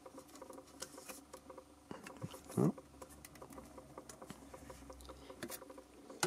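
Light clicks and taps of a metal Pokémon card tin being handled and turned over in the hands, with a sharper knock near the end. A brief murmur about two and a half seconds in.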